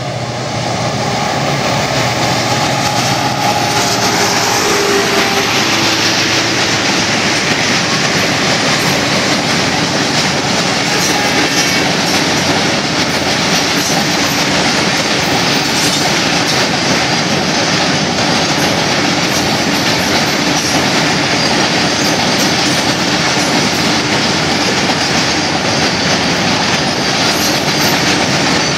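Loaded goods train of open-top coal wagons passing close by at about 80 km/h: a steady loud rumble and clatter of wheels on the rails, swelling over the first couple of seconds as the train arrives.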